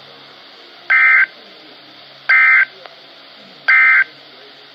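NOAA Weather Radio Emergency Alert System end-of-message code: three short digital data bursts about a second and a half apart, over a low hiss. They signal the end of the flash flood warning message.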